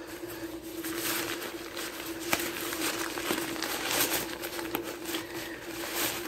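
Nylon fabric rustling and crinkling as a rolled inflatable sleeping pad is pushed and worked into its stuff sack, in irregular scrapes and swishes. A faint steady hum runs underneath.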